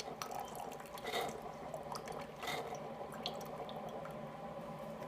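Single-serve coffee brewer running a descaling brew, its pump humming steadily while the hot water-and-vinegar solution streams and drips into a mug, with a few light ticks.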